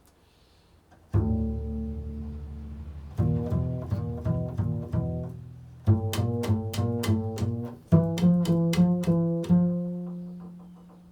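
Improvised instrumental music with deep, string-like tones: after about a second of near quiet, a low chord is held, then quick repeated plucked notes follow in phrases that begin about three, six and eight seconds in.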